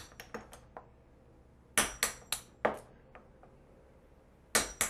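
Claw hammer tapping the back of a knife blade driven into a basswood block, splitting a slab off along the grain: sharp taps, four in quick succession about two seconds in and two more near the end.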